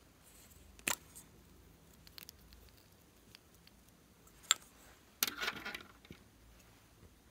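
Lipstick tubes handled close to the microphone: a sharp click about a second in, another about four and a half seconds in, then a brief scraping rustle just after five seconds.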